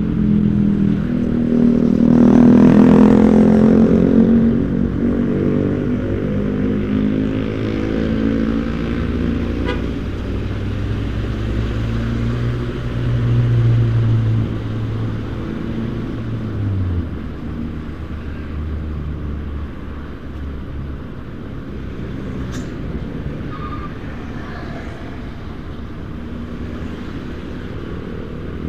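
Motorcycle engine running as it rides along a busy road among cars and other motorbikes, with traffic noise throughout; the engine is loudest a few seconds in, and a deep engine tone falls away about two-thirds of the way through.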